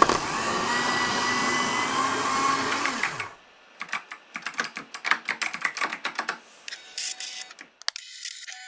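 A small electric machine whirring steadily for about three seconds and stopping abruptly, then rapid clicking keystrokes of computer keyboard typing, then a brief mechanical rattle near the end.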